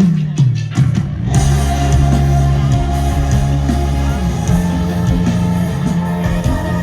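Band music in a rock style with guitar and bass. A few separate hits open it, then the full band comes in about a second in.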